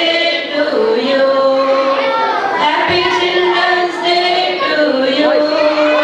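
A group of women singing a song together into a microphone, with long held notes.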